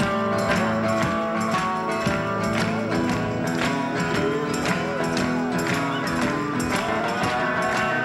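Background music: an upbeat song with guitar over a steady drum beat.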